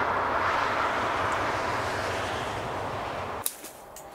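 Steady rush of motorway traffic, mostly tyre noise, swelling slightly as vehicles pass. It cuts off abruptly about three and a half seconds in, leaving quieter outdoor background.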